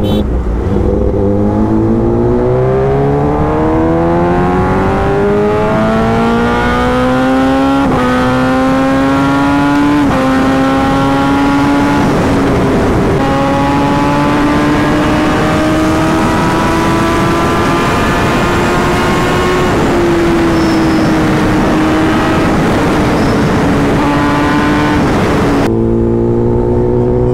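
Kawasaki Ninja ZX-10R inline-four through an SC Project S1 exhaust, accelerating through the gears. The pitch climbs steadily and steps down at upshifts about 8, 10 and 13 seconds in, then holds at a high steady cruise and eases off. Near the end it changes abruptly to a lower steady note.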